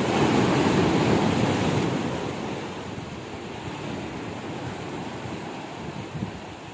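Sea waves breaking and washing among the concrete tetrapods of a breakwater, loudest in the first two seconds and then subsiding to a steady wash.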